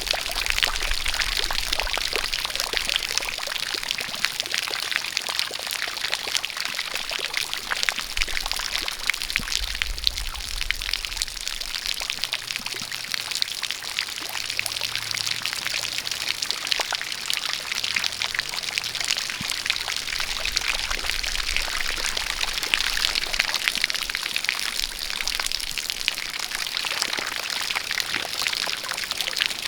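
Rain falling together with a steady stream of water pouring and splashing: a constant rush of water with many small drop hits through it.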